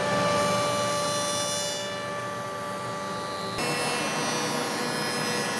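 Spindle moulder (shaper) with a V-groove glue-joint cutter head running at speed and cutting along a board's edge: a steady high whine over cutting noise. The sound shifts in level and tone about three and a half seconds in.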